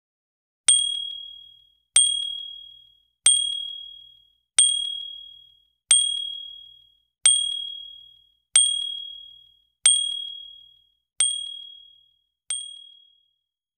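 A notification-bell sound effect dings ten times, about once every 1.3 seconds. Each is a single bright, high ding that rings out for about a second, and the last two are quieter.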